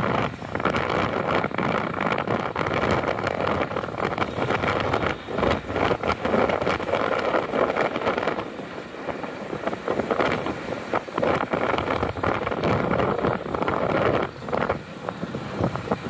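Traffic and engine noise from inside a car moving through city traffic, with wind buffeting the microphone in uneven gusts.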